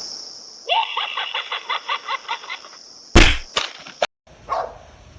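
An animal's quick run of short pitched calls, about six a second for two seconds, over a steady high-pitched hiss, followed by a single loud thump.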